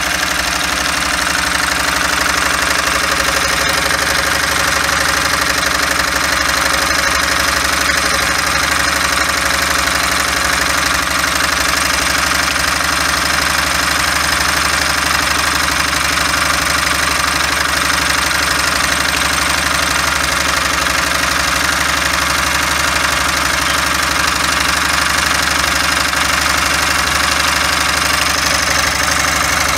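Homemade Stirling engine built on a 100cc four-stroke dirt bike cylinder and piston, running steadily with a fast, even mechanical beat.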